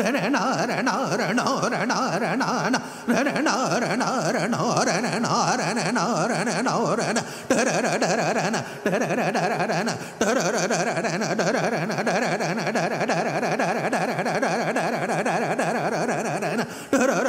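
Male dhrupad vocalist singing the alaap of Raga Kamboji over a tanpura drone. In the first half his voice swings in wide oscillations around the notes, then holds steadier notes, with a few brief pauses.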